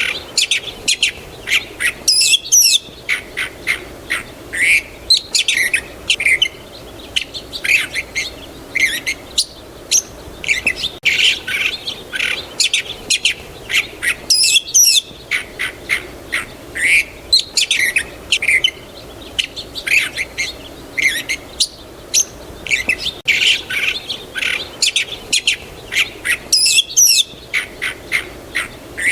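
Small songbirds chirping and twittering in quick, overlapping calls. The same stretch of birdsong repeats about every twelve seconds, as a loop.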